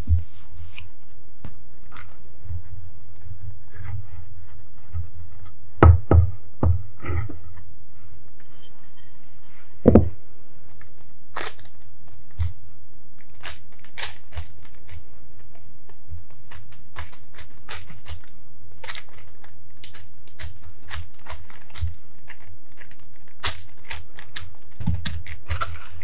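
Hands working dough on a silicone baking mat and a parchment-lined baking tray: scattered soft knocks and taps, the loudest about six and ten seconds in, then a run of light crinkles of parchment paper, over a steady low hum.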